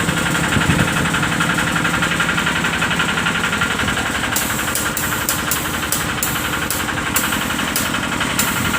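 Excavator engine idling steadily with a fast, even pulse. From about halfway, short bursts of hiss come and go repeatedly.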